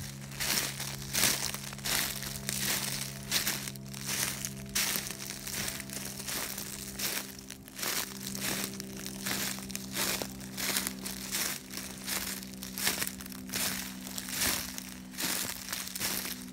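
Footsteps through dry leaf litter and brush, crunching at a walking pace of a little over one step a second.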